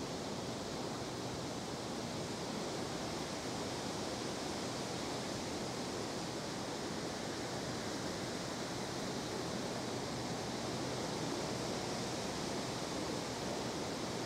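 Steady outdoor background noise, an even hiss with no distinct events, over a faint low hum.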